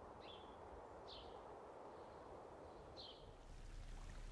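Faint bird chirps, three short calls a second or two apart, over a low steady background hiss.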